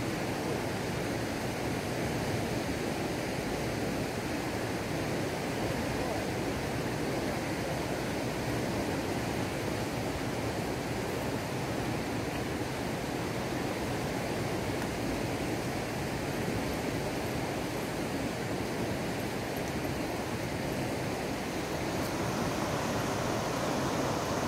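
Steady rushing of a river: an even, unbroken wash of flowing water.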